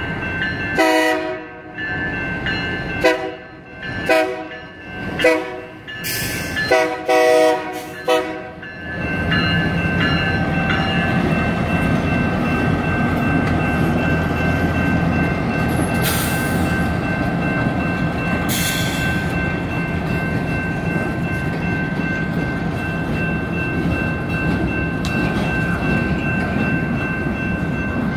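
Union Pacific GP38-2 diesel locomotives sound their horn in a series of short blasts, then rumble past with the freight cars rolling by. The crossing's General Signals electronic bells ring steadily underneath.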